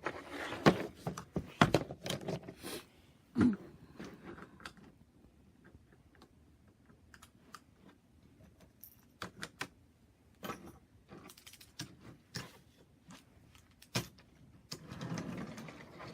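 Wooden toy train engines and cars clicking and clacking as they are handled and coupled together into a long train. The knocks are short and sharp, scattered irregularly, and come thickest in the first few seconds and again near the end.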